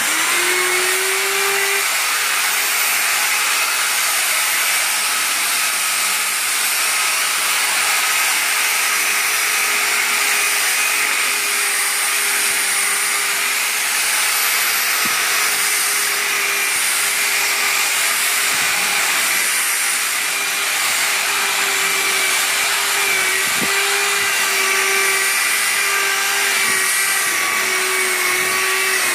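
Handheld electric rotary polisher with a brush pad running at speed, scrubbing wet, soapy sofa fabric. The motor starts suddenly with a short rising whine as it spins up, then runs with a steady whine.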